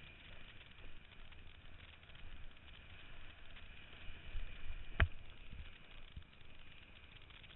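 Steady wind and water noise picked up by a head-mounted camera as a kiteboard rides across choppy water, with low thumps and one sharp knock about five seconds in.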